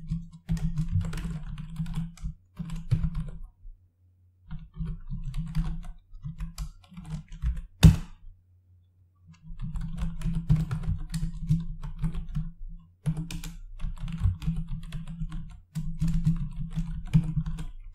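Typing on a computer keyboard: quick runs of keystrokes with two short pauses, and one sharper, louder key strike about eight seconds in.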